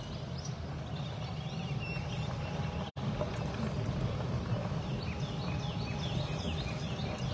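Small birds chirping in quick short calls over a steady low rumble, with a brief dropout in the sound about three seconds in.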